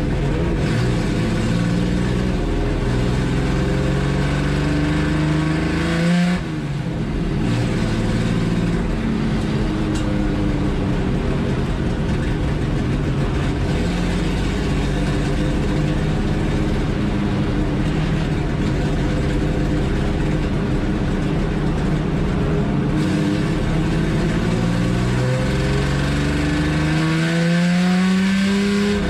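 Chevrolet Opala 250 race car's inline-six engine at racing revs, heard from inside the stripped cabin. The note climbs in pitch as the car accelerates, drops sharply about six seconds in as at a gear change, and climbs steeply again near the end.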